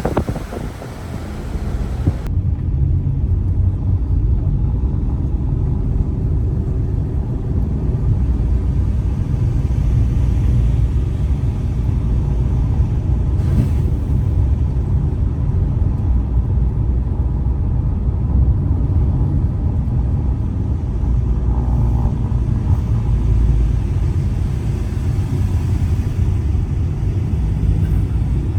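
Car driving: a steady low rumble of engine and road noise. A brighter rushing noise in the first two seconds cuts off abruptly.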